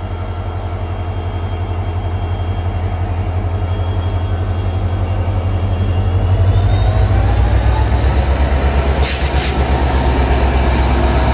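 EMD WDG4 diesel-electric locomotive's V16 two-stroke engine running with a low pulsing throb, growing louder as its pitch rises about six seconds in, as the locomotive powers up. Two short clicks sound about nine seconds in.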